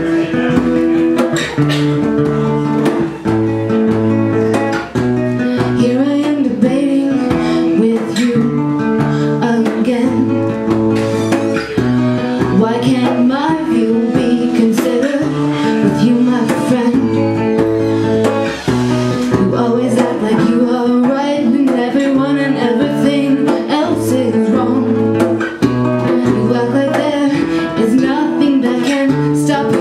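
Live acoustic folk song: a woman singing over her own acoustic guitar, with a hand drum keeping time.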